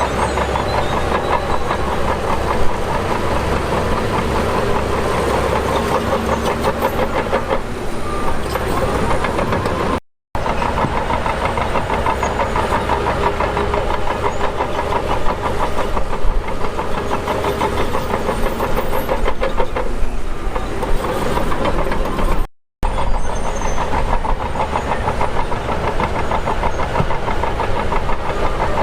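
Heavy diesel engine of earthmoving equipment running steadily with a dense, rapid rumble. It cuts out briefly twice, about ten seconds in and again about twenty-two seconds in.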